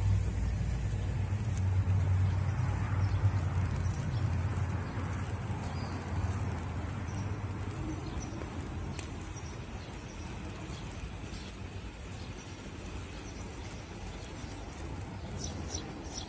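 A low engine hum, strongest for the first five or six seconds and then fading, over steady outdoor background noise, with a few short bird chirps near the end.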